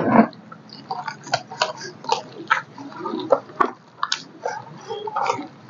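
A hand squeezing and mixing thick onion pakoda batter in a bowl: a quick, irregular run of wet squelches and small clicks.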